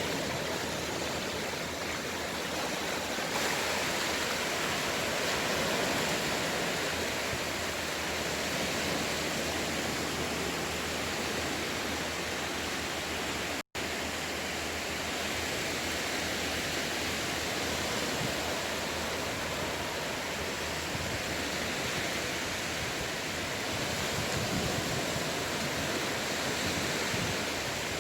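Sea waves with a steady, continuous rush of surf, cutting out for an instant about halfway through.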